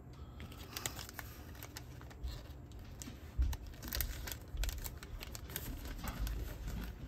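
Clear plastic zip-lock bag crinkling and rustling as it is handled, with scattered sharp clicks and a few dull bumps on the workbench.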